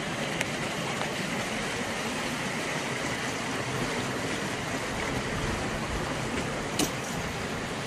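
Steady rushing noise of flowing river water, with a single sharp knock near the end.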